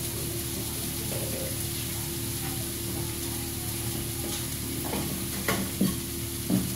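Shredded leeks and cabbage sizzling steadily on a flat iron griddle, with a low steady hum under the hiss. Three or four short knocks come in the last second and a half.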